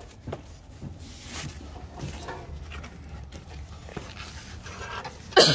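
A dog gives one short, loud yelp with a falling pitch near the end. Before it come faint scattered clicks and rustles as hands work at the underside of the car.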